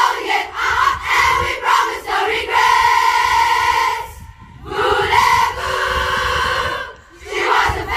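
A large crowd of school pupils chanting a war cry (kreet) together: short rhythmic shouted phrases, then long held sung notes, broken by a short pause about four seconds in.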